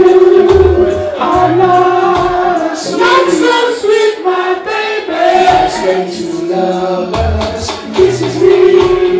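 Male reggae vocal group singing sustained lines in harmony, several voices together, over a reggae backing with a pulsing bass line.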